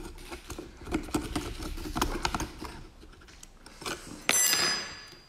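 Knife scraping and clicking against the hard shell of a giant oyster as it is pried open. About four seconds in comes a sudden metallic clatter that rings on briefly.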